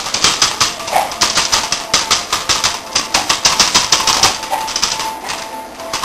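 A 45-day-old Belgian Shepherd puppy scrabbling on paper sheets laid over the floor while tugging a toy: rapid, irregular scratching and crackling of claws and paws on paper, several per second.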